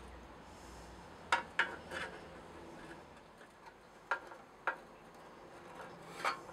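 About six sharp, small metallic clicks and clinks, spaced unevenly, as long-nose pliers and the linkage parts of a Briggs & Stratton 5 HP engine's carburetor are handled.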